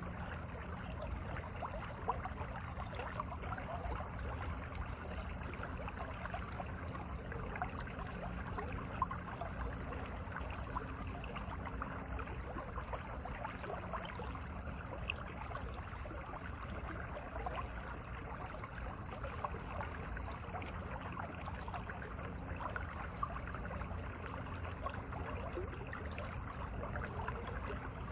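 Mountain valley stream running, a steady rushing and splashing of water that keeps on without a break.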